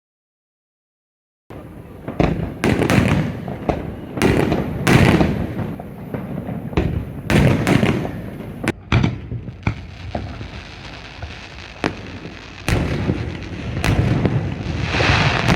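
Fireworks bursting overhead in quick succession: a run of booms and sharp bangs with crackling between them, starting after about a second and a half of silence.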